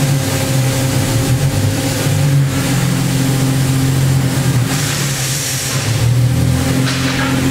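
Daewoo Puma 2000SY CNC turning center running with a steady machine hum that shifts in pitch as the tool turret is jogged along its axes. A brief hiss comes about five seconds in.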